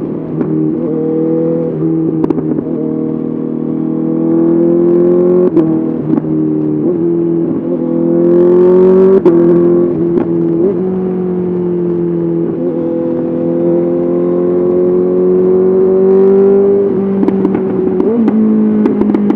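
Honda CBR 650R inline-four running through an SC-Project SC1R exhaust under way at moderate revs. The engine note climbs slowly and then drops briefly several times, with short sharp cracks at those drops. It is loudest about halfway through.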